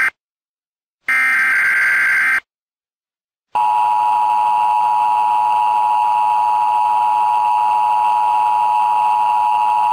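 Emergency Alert System broadcast tones. About a second in, a burst of warbling digital data tones lasts just over a second. After a short silence, the steady two-tone attention signal starts about three and a half seconds in.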